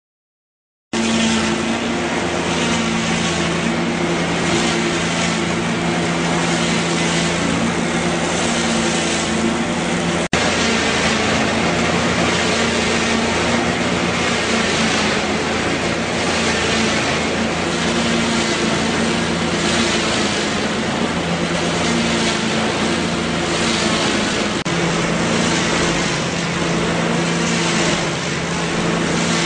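Log lathe running, starting about a second in: a steady motor hum under a broad rushing noise that swells and fades every second or so.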